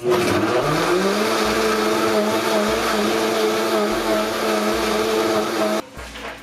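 Countertop blender motor switched on, spinning up in pitch over about a second, then running steadily as it purées a thick spinach and banana shake, and switched off abruptly near the end.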